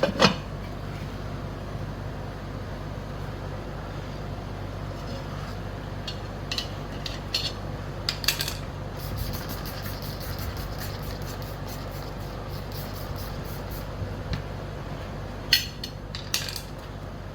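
Metal tools clinking and tapping against a scooter wheel rim as the tire is pried off, with a quick run of light ticks in the middle and a steady low hum underneath.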